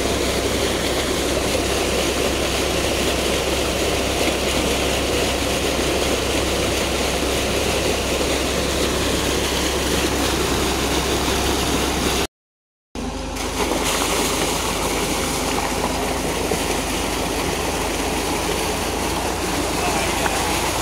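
Water gushing steadily from a tubewell pump's outlet pipe and splashing into a concrete tank. Under it a tractor engine hums as it drives the belt-driven pump at raised speed to test the new bore's full flow. The sound cuts out for about half a second around twelve seconds in.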